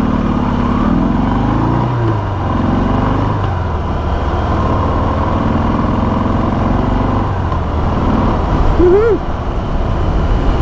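Stock Harley-Davidson Sport Glide's Milwaukee-Eight 107 V-twin engine and stock exhaust running on the move. The engine note rises and then drops about two seconds in, then holds steady. A brief chirp comes near the end.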